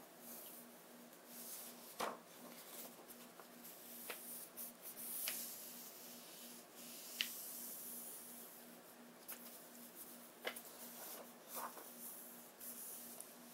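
A hand rubbing and smoothing the paper pages of a hardcover book, a soft steady brushing broken by a few short crisp paper crackles as pages are turned.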